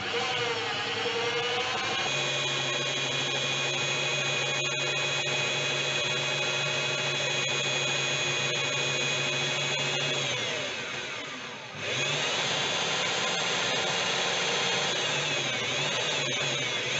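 Corded electric hand drill running at steady speed, boring lengthwise through a small screw with a 2.5 mm bit. About ten seconds in the motor winds down, stops briefly, then speeds back up and runs on.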